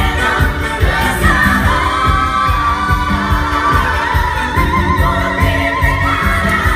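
Live musical-theatre song: women's voices singing with vibrato over band accompaniment with a steady beat.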